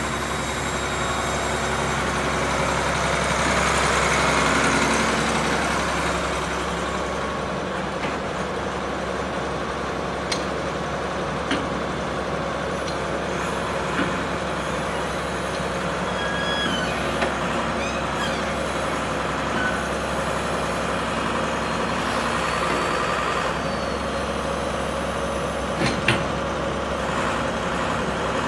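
Akerman H7MC wheeled excavator's diesel engine running with its hydraulics working as the upper structure slews round and the boom and scrap grab move. The engine note swells around four seconds in, and a few sharp clicks and knocks come through now and then.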